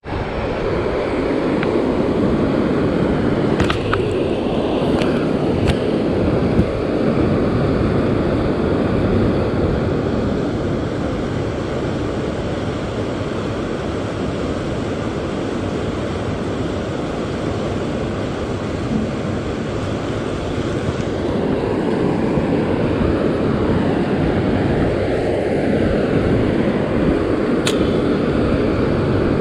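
Steady rushing of water pouring into a concrete basin, a continuous loud roar.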